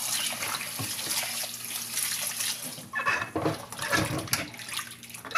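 Tap water running over raw chicken feet as they are rinsed, with a few short knocks of handling in the second half.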